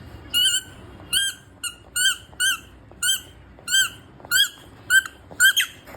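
Squeaky toy ball squeaking over and over, about two short rising-and-falling squeaks a second, coming faster near the end.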